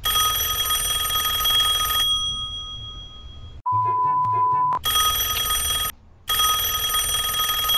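Phone ringing: a steady electronic ring in bursts of about one to two seconds. A steady high beep cuts in about three and a half seconds in.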